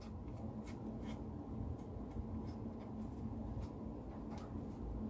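Faint rustling and light taps of hands handling a spring roll wrapper while dabbing on homemade glue to seal the roll, over a low steady hum.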